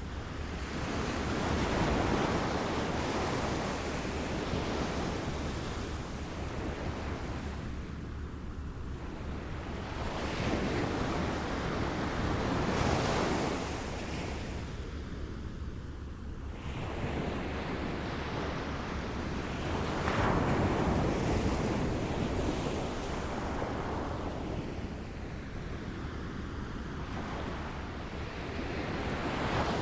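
Waves lapping on a shore, washing in and drawing back in slow surges every few seconds.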